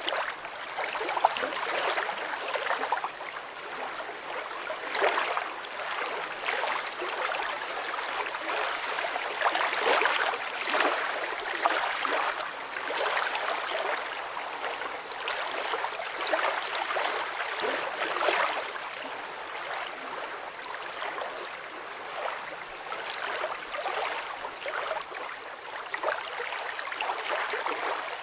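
Water flowing steadily with an uneven splashing and gurgling hiss that swells in small surges every second or so.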